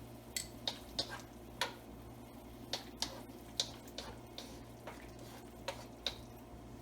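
About a dozen light, scattered clicks and ticks at a pot of boiling soup stock, some with a short metallic ring, over a low steady hum.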